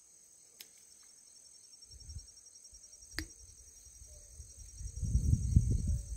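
Insects chirring in a steady, high, evenly pulsing drone, with two sharp clicks. From about five seconds in, a low rumbling noise on the microphone grows loud.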